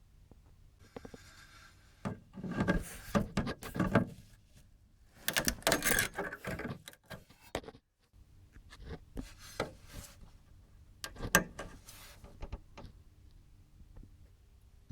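Electronic equipment being handled during disassembly: rubbing and scraping of the casing and circuit boards, with sharp clicks, in several irregular bursts.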